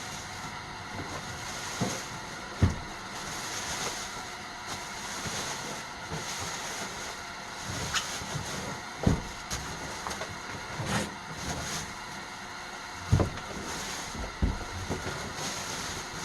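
Unit and packaging being handled: a few short, dull thumps as the tankless water heater is turned over and moved in its box, over a steady background hiss.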